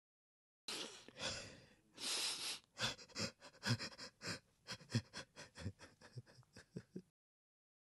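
A man crying: two long, shaky breaths, then a rapid run of short gasping sobs, which cuts off suddenly near the end.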